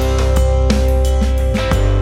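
Background music: a band track with guitar, bass and drums and a steady beat.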